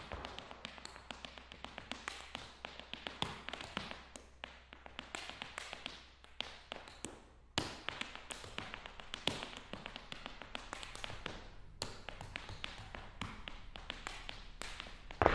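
Irish dancing hard shoes striking the floor in quick, uneven rhythmic taps and clicks of toe and heel, with a short pause a little before halfway and then a sharp single strike.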